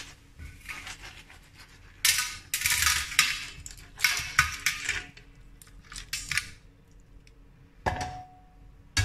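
Clams in their shells and pasta clattering and sliding from a frying pan onto a stainless-steel serving platter, in several rattling bursts of shell on metal. Near the end a short metallic knock with a brief ring.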